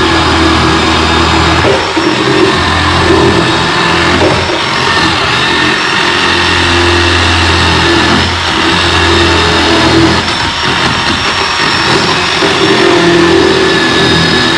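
Chainsaw cutting out the old wooden transom of a boat, running loud and continuous, its sound swelling and easing every few seconds as it bites into the wood.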